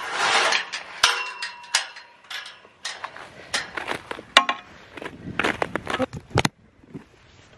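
Puffer-jacket fabric rustling against the microphone, then irregular crunching and crackling steps on icy, frozen snow.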